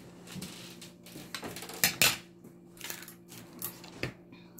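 Metal spoon clinking and scraping against a plate, with a few sharp clinks, the loudest two close together about two seconds in.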